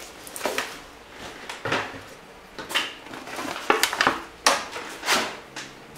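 Hands handling headset packaging, a plastic blister tray and a cardboard box: several light knocks and clatters with brief plastic rustles.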